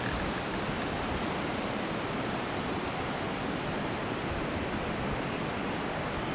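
Steady rush of storm wind, with low rumbling gusts buffeting the microphone.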